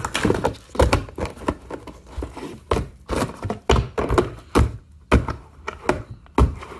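Shrink-wrapped cardboard mini boxes of trading cards being set down and stacked on a table: a run of irregular light thunks and taps, about a dozen, as box knocks on table and on box.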